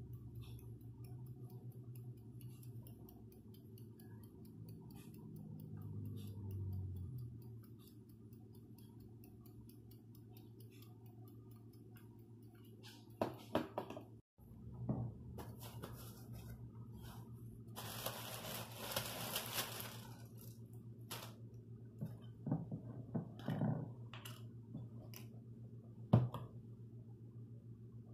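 Kitchen handling sounds: a glass bowl and utensils knocking and clinking on a table, with a noisy rustle lasting about two seconds past the middle and a sharp knock near the end, which is the loudest sound. A steady low hum runs underneath.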